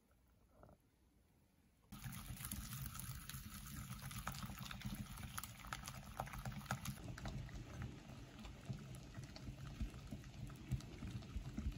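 A wire whisk stirring thick chocolate financier batter in a glass bowl: a wet, squelching stir full of small clicks. It starts suddenly about two seconds in.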